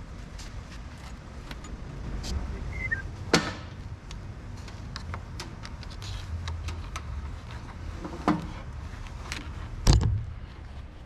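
Handling noises while routing wiring in a Jeep: scattered light clicks and rattles, with three louder knocks, about a third of the way in, near the end, and a heavier thud just after that which is the loudest.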